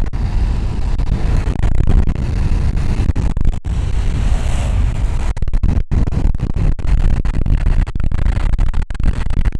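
Heavy wind buffeting the camera's microphone during a fast downhill longboard run, a loud low rumble with brief dropouts, mixed with the roar of the board's wheels on asphalt. A brighter hiss rises for a moment about halfway through. The recording is distorted.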